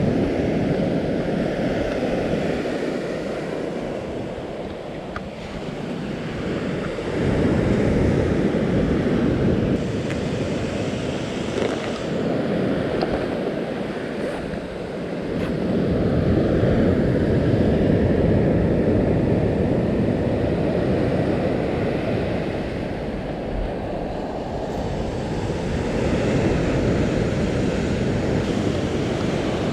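Surf waves breaking and washing up the beach, the noise swelling and ebbing every several seconds, with wind buffeting the microphone.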